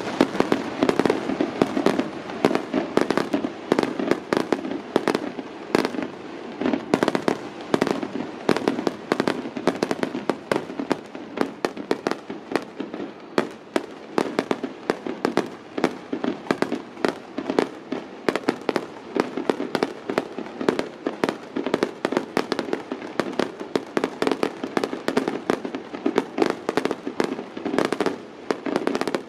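Aerial fireworks going off in a continuous barrage, a few sharp bangs every second.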